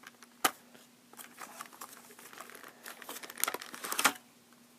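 Diecast car packaging crinkling and crackling as it is handled and opened, with a sharp click about half a second in and a busier burst of crackles near the end that stops suddenly.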